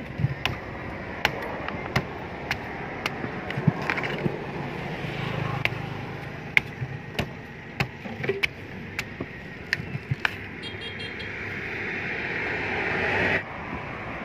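A large knife chopping the husks of palmyra (sugar palm) fruits on a wooden table: sharp, irregular chops, roughly one or two a second, for about ten seconds. Near the end a rising hiss swells and stops abruptly.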